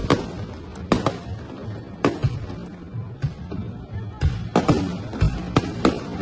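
Fireworks shells bursting overhead in a string of sharp, irregular bangs, coming faster near the end, with music playing underneath.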